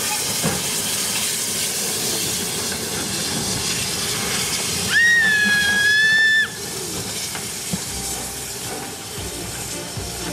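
Small saddle-tank steam locomotive hissing steam, with one steam-whistle blast of about a second and a half, steady in pitch, about five seconds in; the hiss is softer after the whistle.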